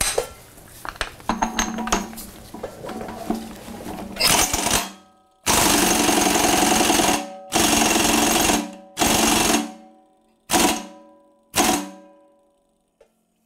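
A 3/4-inch Earthquake XT air impact wrench hammering a nut tight in a bolt-tension tester. After a quieter first few seconds it fires six loud bursts, each trailing off as the trigger is let go. The bursts get shorter toward the end as the nut is brought up to about 1,100 ft-lb.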